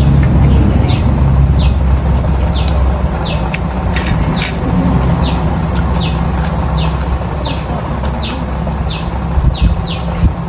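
Low rumble of road traffic, strongest at first and easing off, under a small bird repeating short falling chirps about once or twice a second. A few sharp clicks come about four seconds in.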